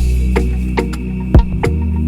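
Electronic background music with a deep sustained bass and a steady drum beat.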